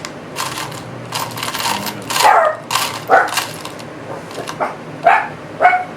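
A dog barking repeatedly in the background, a string of short barks that each drop in pitch.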